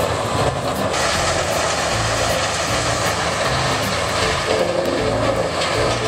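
Vermeer TG 7000 tub grinder running under load, grinding brush into mulch: a steady, dense mechanical noise that turns harsher and hissier about a second in.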